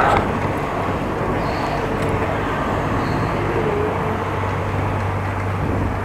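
Steady rush of wind and road noise from riding a bicycle, picked up by an action camera's microphone, with a low steady hum underneath.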